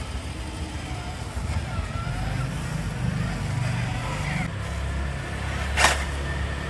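Micro-scale RC crawler running, a steady low motor rumble that shifts in pitch with throttle, with one sharp click about six seconds in.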